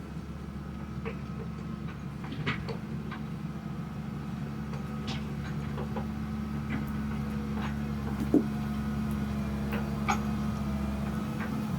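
Excavator engine running steadily under load, with scattered clicks and knocks and one sharper knock about two-thirds of the way through.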